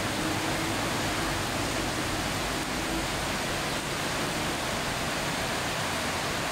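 Heavy tropical rain pouring steadily onto a street and the awning overhead, a constant dense hiss, with traffic passing on the wet road.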